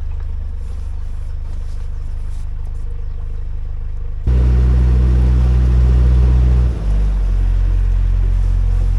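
Narrowboat's diesel engine running steadily under way, suddenly louder about four seconds in and easing back a little near seven seconds.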